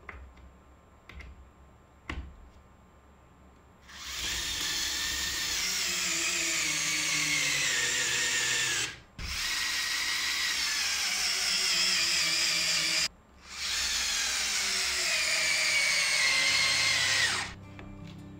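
Electric drill or power screwdriver running in three long runs of several seconds each, with short breaks between them. Its whine sinks in pitch during each run.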